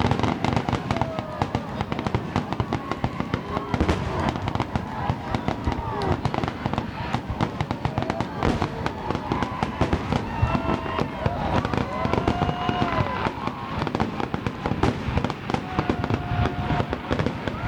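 Aerial fireworks going off in rapid succession, a dense, unbroken run of bangs and crackles.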